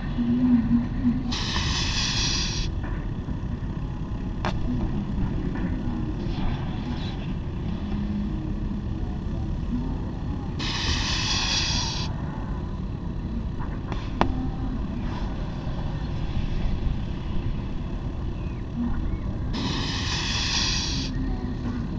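Steady low rumble with three short bursts of hiss about nine seconds apart, each just over a second long, and a couple of faint clicks.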